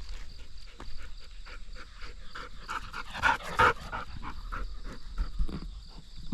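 A dog panting in quick short breaths, loudest about three to four seconds in.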